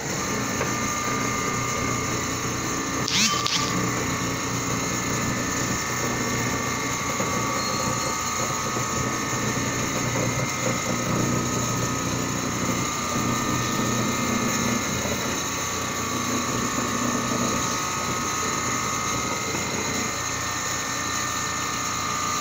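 Richpeace large-format CNC sewing machine running as its sewing head stitches and travels along the gantry: a steady mechanical hum with several constant high whining tones. A brief sharp noise about three seconds in.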